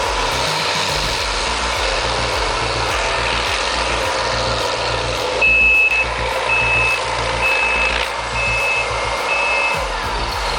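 Diesel engines of a Cat D8N dozer and Cat 621B scraper running steadily under load. Past the halfway point a backup alarm beeps five times, about once a second.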